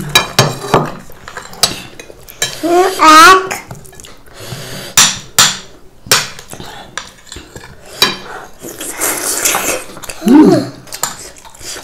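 Metal spoons clinking and scraping on ceramic dinner plates during a meal, a run of short sharp clicks throughout. A brief pitched vocal sound rises about three seconds in, and another short one falls a little past ten seconds.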